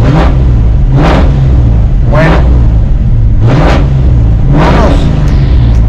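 Ford 5.0 V8 (302) in a Fox-body Mustang running, blipped about five times; each rev rises and falls back to idle. Heard from inside the cabin.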